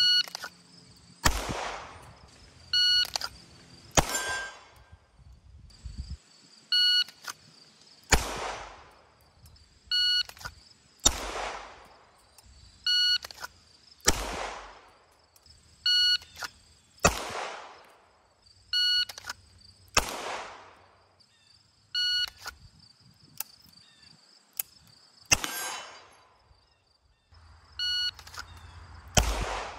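Electronic shot timer beeping, followed about a second later by a single 9mm pistol shot from a CZ Shadow 2 drawn from the holster; the beep-then-shot cycle repeats about every three seconds, nine or so times. Each shot trails off in a brief echo.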